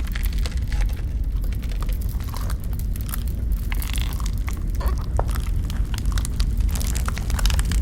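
Irregular crackling and snapping over a steady low rumble.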